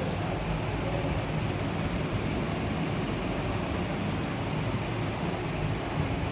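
Steady background noise with a low hum underneath, even throughout with no distinct knocks or clicks.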